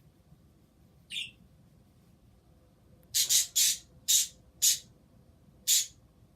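Pet bird calling: one fainter high call about a second in, then a quick series of about six loud, short calls.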